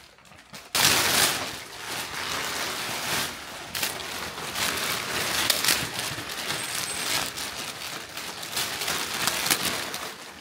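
Thin plastic wrapping sheet crinkling and rustling steadily as it is pulled and bunched off a motorcycle, starting about a second in.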